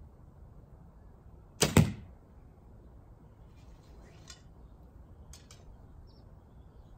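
A 64-inch recurve bow is shot: the string is released with one short, sharp double snap from string and limbs about a second and a half in, with string silencers fitted. A few faint clicks follow.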